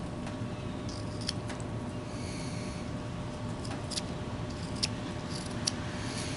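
Whittling knife cutting into wood: short scraping shaves and a few sharp clicks of the blade, over a steady background hum.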